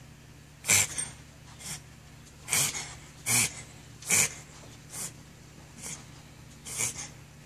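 A dog coughing over and over: a series of short, sharp coughs about a second apart, some louder than others.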